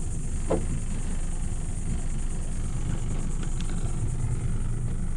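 Boat's outboard motor running steadily at low speed, a low even rumble as the boat moves across the water.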